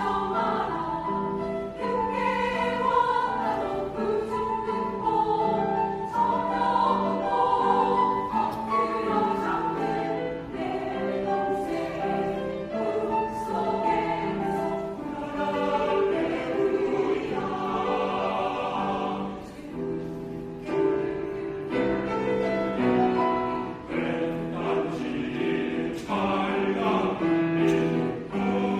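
Choir singing in several-part harmony, sustained sung phrases with short breaks between them.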